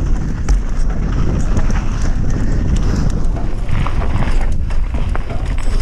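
Mountain bike riding down a rough dirt trail: a constant low rumble with frequent clicks and knocks as the bike rattles over bumps.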